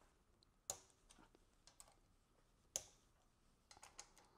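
A few faint, sharp metal clicks from a hand tool working the 5/16 bolts on a Briggs & Stratton Intek engine's oil pump cover: a single click about a second in, a louder one past the middle, then a quick short run of clicks near the end.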